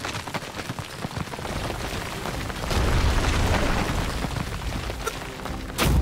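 Explosion-aftermath sound effect: a deep, rumbling rush of noise that swells about halfway through, with a sharp hit near the end.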